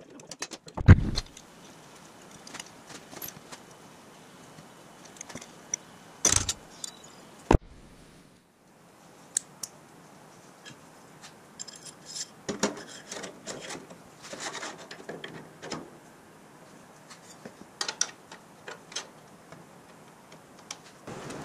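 Intermittent metal clinks, clacks and knocks of small steering-column parts and hand tools being handled, with a few louder knocks in the first half.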